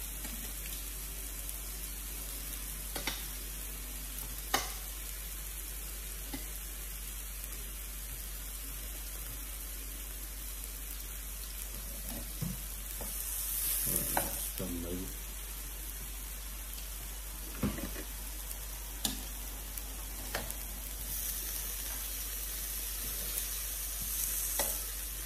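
Chicken and beef sizzling steadily on an electric tabletop grill plate, with a few sharp clicks of metal tongs and chopsticks. The sizzle swells briefly around the middle and again near the end as pieces are turned with tongs.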